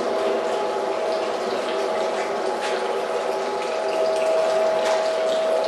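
Stainless steel centrifugal spinner running, its perforated basket of potato strips spinning at speed: a steady motor hum with a constant whine over a rushing noise.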